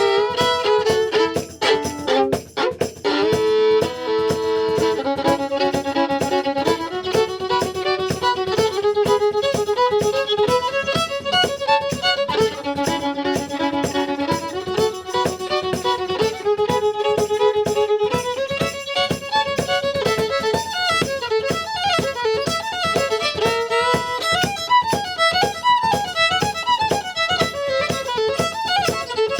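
Fiddle playing a tune, with held notes and double stops in the first half and quicker runs of notes later on.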